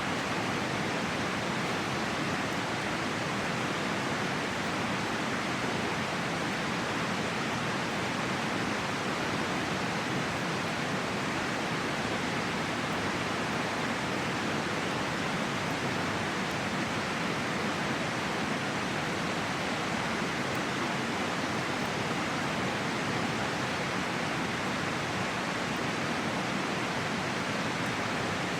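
A river rushing steadily, a constant even hiss of flowing water.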